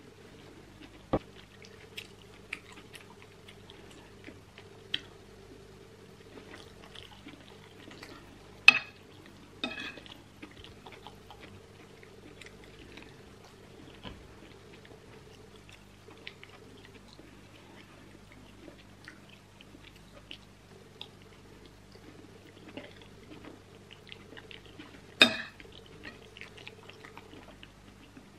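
Close-miked eating of rice in sauce: soft chewing and mouth sounds, with sharp clicks of a metal spoon on the plate, the loudest two about nine seconds in and near the end. A faint steady hum runs underneath.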